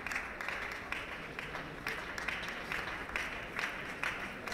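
Crowd clapping in unison, about two claps a second, with an even steady beat.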